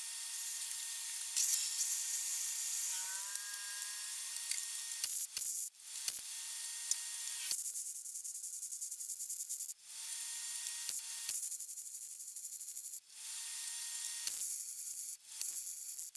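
Gas torch hissing steadily while it preheats thick steel for welding, cutting off and starting again several times.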